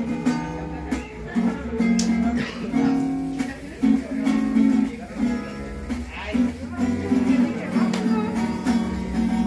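Acoustic guitar strumming a repeating chord pattern over a low bass line: the instrumental intro of a song.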